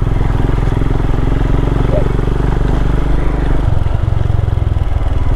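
Single-cylinder motorcycle engine running steadily under way on a dirt track, its note changing a little under four seconds in as the throttle or gear changes.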